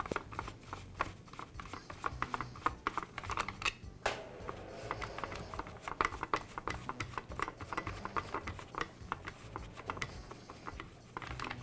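Faint irregular clicking and rubbing of gloved fingers unscrewing the bolts that hold the bar to a Black and Decker cordless lopper, small metal parts ticking against each other.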